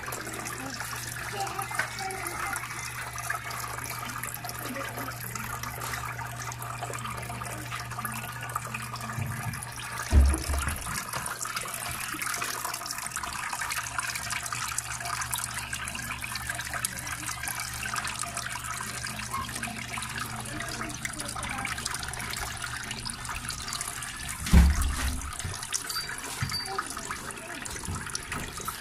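Small homemade tiered fountain running: water trickling and splashing from tier to tier into its basin. A steady low hum lasts for about the first ten seconds, and two low thumps come about ten seconds in and again later.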